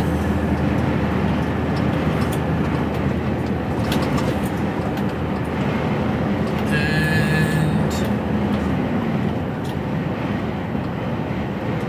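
Steady diesel engine drone and road noise heard inside an HGV lorry cab cruising at speed. A brief high-pitched sound cuts in about seven seconds in.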